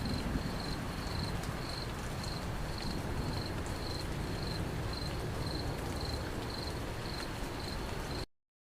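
A cricket chirping steadily, about two short high chirps a second, over a steady low rumbling hiss. All sound cuts off abruptly near the end.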